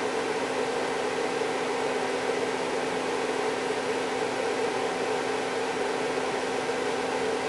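LeBlond Makino RMC 55 CNC milling machine's spindle running free at speed, not cutting: a steady whirring hum with a constant tone, no change in speed.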